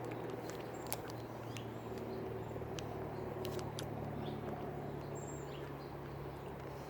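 Close-up chewing of hard-shelled sour gummy worms, with scattered sharp crunches as the candy shell cracks, over a steady low hum. A short high chirp sounds about five seconds in.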